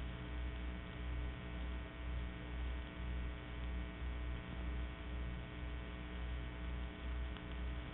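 Steady electrical mains hum on an old narrow-band recording, with a slow, even throb about every three-quarters of a second.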